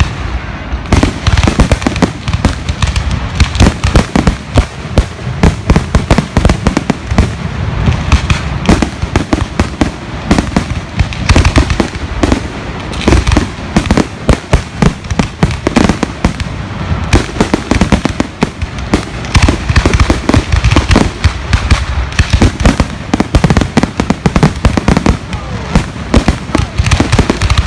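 Fireworks going off, with many bangs and crackles in quick, overlapping succession throughout.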